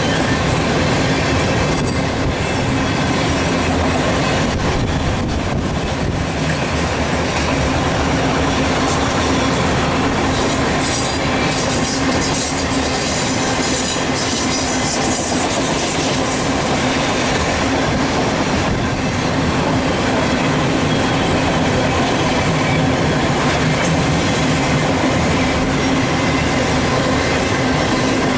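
Freight train of autorack cars rolling past at about 37 mph: a steady loud rumble of steel wheels on the rails with clickety-clack of wheels over rail joints, and a short high wheel squeal about eleven seconds in.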